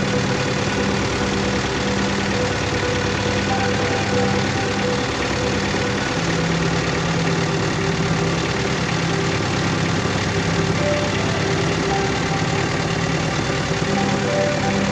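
An engine idling steadily, shaking with a misfire that the owner puts down to an injector fault in the fuel system.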